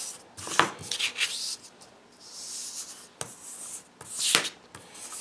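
Pencil compass scratching on paper as a circle is drawn, in several short scraping strokes with a couple of light ticks in between.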